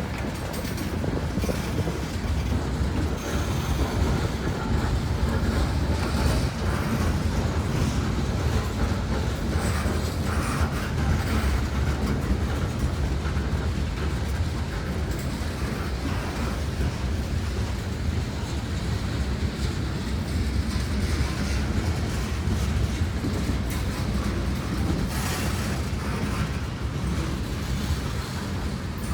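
Freight train cars rolling past: a steady rumble of steel wheels on the rails, with clicking as the wheels cross rail joints.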